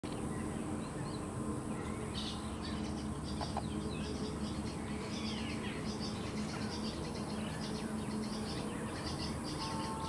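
Many birds chirping together, short high calls overlapping thickly from about two seconds in, over a steady low hum.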